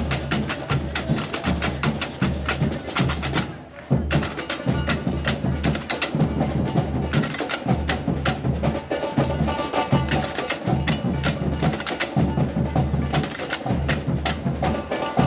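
Samba bateria drum ensemble playing a batucada groove, deep bass drums under sharp, rapid high drum hits. About three and a half seconds in the playing drops away briefly, then the whole section comes back in together at about four seconds.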